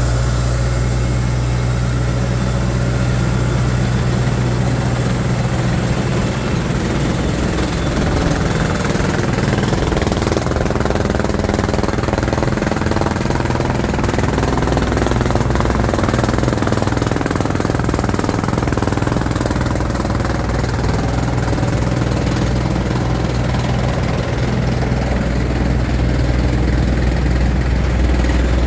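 Deutz diesel engine of a Terex Finlay 883 mobile screener running steadily with a deep, even hum.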